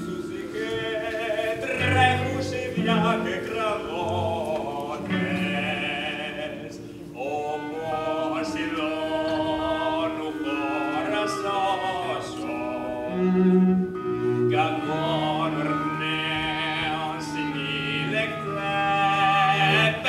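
Live stage music: voices singing a wavering melody over held cello notes, with a few short low timpani strokes.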